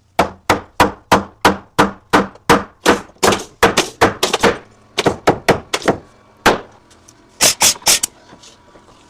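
Hammer blows in a steady rhythm, about three strikes a second for several seconds, then a few scattered strikes and a quick group of three near the end.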